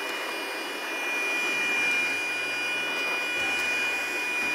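Small portable handheld vacuum running steadily, a high motor whine over a hiss of rushing air, as it sucks dust and hair out of a keyboard.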